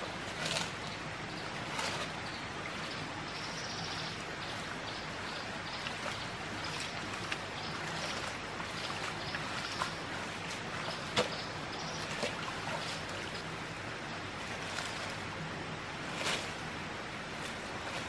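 Steady hiss of running water, with scattered small clicks and a few brief rustles.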